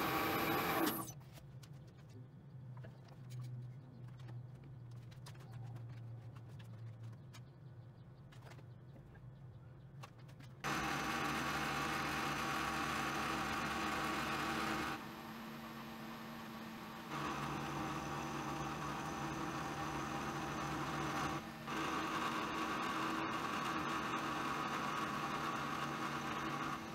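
Round-column mill-drill running, centre-drilling and then cutting a 3 mm deep slot in a metal plate with an end mill: a steady machine run with several pitched hums. For the first ten seconds it is quieter with scattered clicks, then much louder from about eleven seconds in, the level jumping abruptly a few times.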